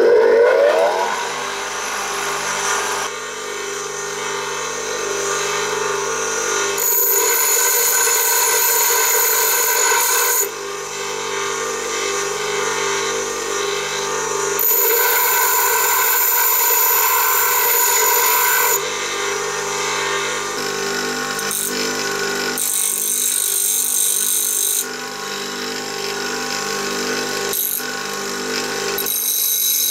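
A restored Soviet Tomsk 460 W bench grinder running with a steady motor hum, while steel tools are pressed against its grinding wheels several times, each pass adding a high grinding hiss that stops when the tool is lifted away.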